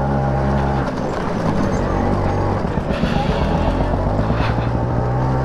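LML NV scooter's two-stroke engine running under way, heard from the rider's seat. It runs steadily for about a second, then turns rougher and more uneven.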